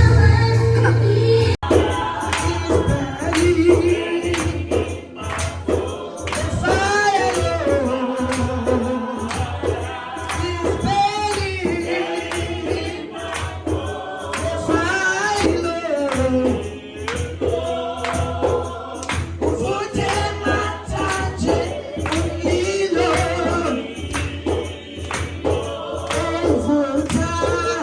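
Gospel choir singing in praise with a steady tambourine beat driving the rhythm.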